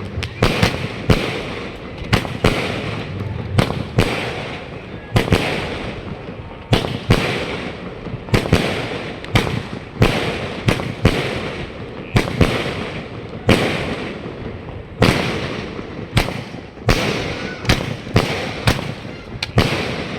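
36-shot fireworks cake ('Romance' by Diamond Fireworks) firing shot after shot: a sharp bang about every half second to second, each followed by a fading hiss.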